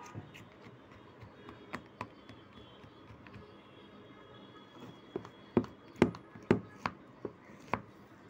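A spatula working a thick mango ice cream mixture in a ceramic dish: soft scraping with scattered light clicks, then a quick run of sharp taps in the last three seconds as the spatula knocks against the dish.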